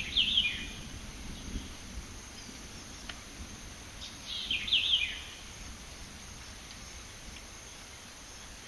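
A bird calling twice, about four and a half seconds apart, each call a quick run of a few falling, high notes, over a faint low rumble.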